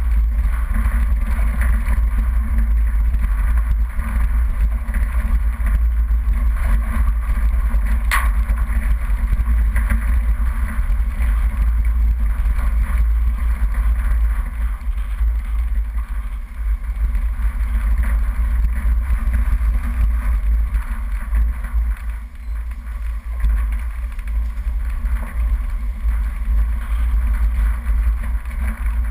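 Off-road vehicle driving down a rough dirt and gravel track: a steady deep rumble of engine, tyres and wind on the microphone, with one sharp knock about eight seconds in.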